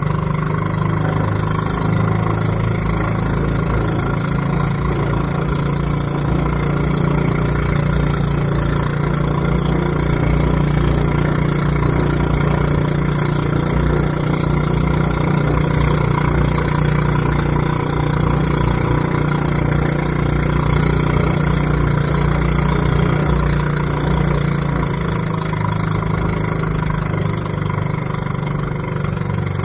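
A small fishing boat's engine running steadily under way, its note easing slightly about 25 seconds in.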